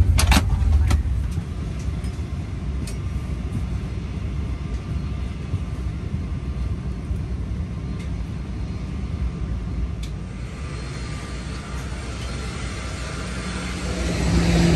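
Cabin noise of a Boeing 737-800 on the ground after landing: a steady low rumble from its CFM56 engines and the airframe rolling, with a few sharp clicks in the first second. Near the end the engine noise swells louder.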